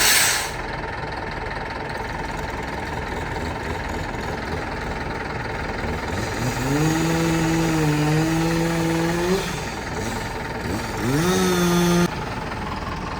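Steady engine drone from machinery working a tree removal. A motor revs up and holds a high pitch for about three seconds, drops off, then revs up again and cuts off abruptly.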